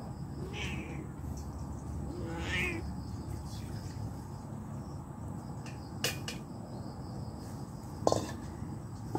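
Two short, high, gliding animal calls in the first three seconds, then metal cookware clinking twice, about six and eight seconds in, as pots are handled.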